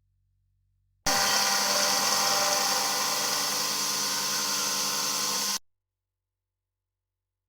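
CNC machine spindle cutting metal on a Siemens Deka fuel injector: a loud, steady, high-pitched machining noise with a few steady tones in it. It starts abruptly about a second in and cuts off sharply four and a half seconds later.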